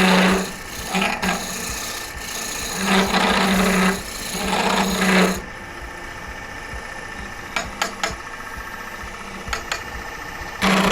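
Gouge cutting into lignum vitae spinning on a wood lathe: four scraping passes of about a second each, each with a steady low hum while the tool bites. About five seconds in the cutting stops, leaving a quieter background broken by a few light clicks.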